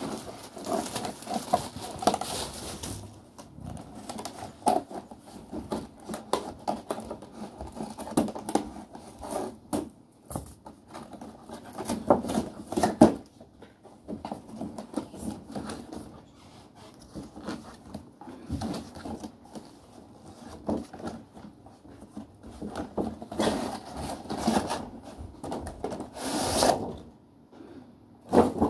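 Scissors cutting and hands tearing and handling a toy box's cardboard and plastic packaging: scattered snips, clicks, crinkles and scrapes, with a louder rustling slide near the end as the cardboard insert is pulled out of the box.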